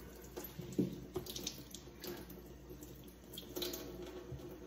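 Faint running water, as from a kitchen tap, with a few light knocks.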